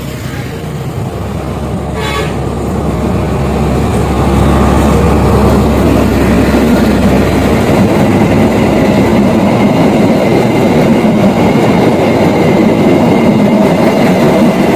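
Train approaching and running past close by, its rumble and wheel noise growing louder over the first few seconds, then staying loud and steady. A short horn toot about two seconds in.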